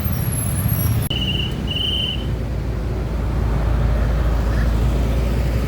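Roadside traffic with a heavy vehicle's engine droning low and steady. Two short high-pitched beeps about a second in.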